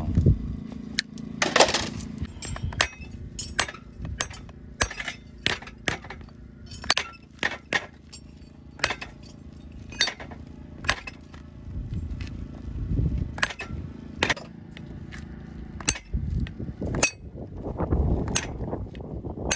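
Irregular sharp metallic clicks and snaps, about one every half second, from farrier's tools working the nails of a steel horseshoe being fitted to a mule's hoof.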